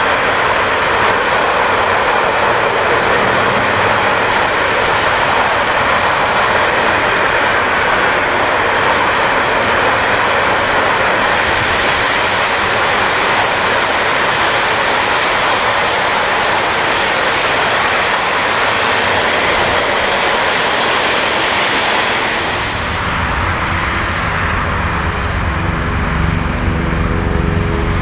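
Steady rushing and rumbling of steel wheels on rails as a long freight train of enclosed double-deck car-transporter wagons rolls past close by. About twenty-two seconds in, this gives way to a quieter, lower sound with steady humming tones as a green electric locomotive with hopper wagons approaches.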